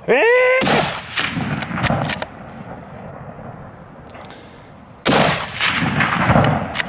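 Hunting rifle shots at a bear: a short rising shouted call, then a shot about half a second in that echoes for a moment, a few sharp clicks, and a second shot about five seconds in with a longer echo.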